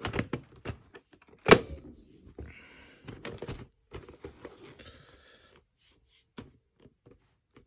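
A VHS cassette and its plastic clamshell case being handled: small clicks and knocks, a sharp plastic snap about a second and a half in as the case shuts, then rustling and scraping as the cases are moved over a bedsheet.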